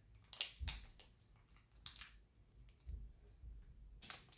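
Thin plastic packet crinkling and clicking as it is handled and peeled away from sticky slime, in a few short sharp clicks with quiet between, the strongest near the start and near the end.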